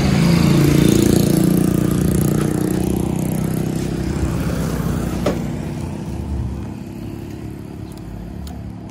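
Motorcycle engine running with a steady hum, loudest at first and slowly fading, with a single sharp click about five seconds in.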